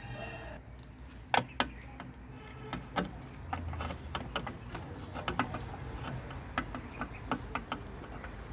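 Metal tools and nuts clicking and clinking in short, irregular strokes as nuts are fitted and tightened, with more clicks in the second half.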